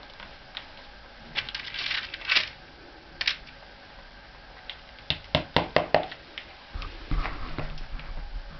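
Shoemaker's lasting pincers working a leather upper over the last. There are a few short scraping grips, then a quick run of about six sharp metallic clicks a little past halfway. A low hum comes in near the end.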